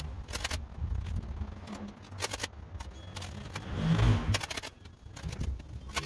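Hand tool scraping and knocking through packed dirt and grass at the edge of pavement, with scattered sharp clicks and one louder scrape about four seconds in.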